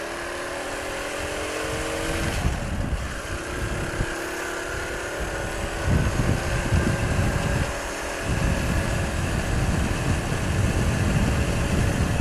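Suzuki Shogun SP 125 motorcycle's single-cylinder four-stroke engine pulling away and accelerating, its pitch rising over the first couple of seconds. It then runs at road speed while wind buffets the microphone in heavy gusts.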